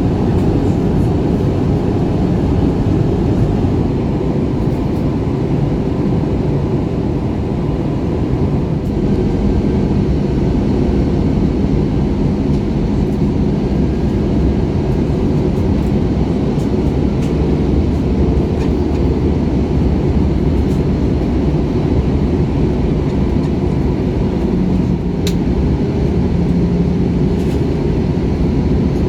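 Steady cabin noise of an Airbus A321ceo on final approach: a continuous rumble of engines and rushing air, heaviest in the low end, with a faint hum coming and going.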